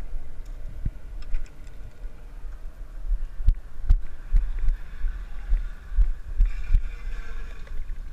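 Low, irregular thumping and rumble on a body-worn action camera's microphone as its wearer moves about a fishing boat's deck, with a few sharp knocks from handling.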